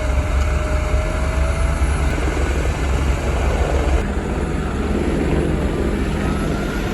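New Holland T7.260 tractor engine running steadily under load, pulling a six-furrow plough through the soil. It is a continuous low drone, with a slight change in tone about four seconds in.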